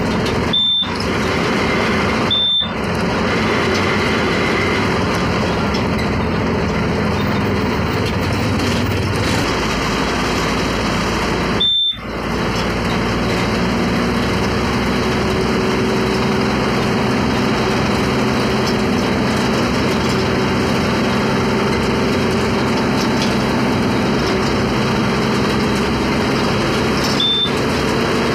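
Steady engine drone and road noise from inside a vehicle driving in city traffic, with a thin high whine running underneath. The sound cuts out for an instant a few times: about a second in, near three seconds, around twelve seconds and near the end.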